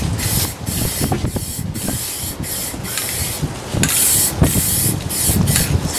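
Aerosol can of clear satin coat spraying through a trigger handle, hissing in repeated short spurts with brief breaks between strokes.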